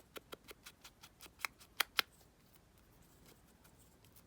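Quick, irregular light taps and clicks as an ink pad is dabbed around the edges of paper, about a dozen in the first two seconds, then fainter ones.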